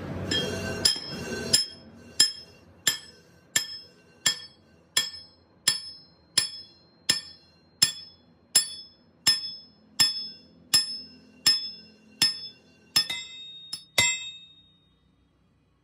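Hammer striking steel in a steady rhythm, about one ringing blow every 0.7 seconds, with a few quicker blows near the start and near the end. The hammering stops about 14 seconds in.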